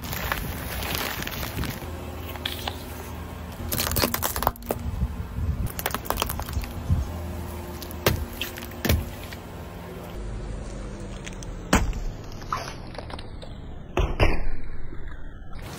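A car tyre rolling slowly over sealed snack packets and then plastic-wrapped candy sticks on asphalt, crushing them in a series of sharp crunches and crackles, the loudest about fourteen seconds in. The car's engine idles with a steady low hum underneath.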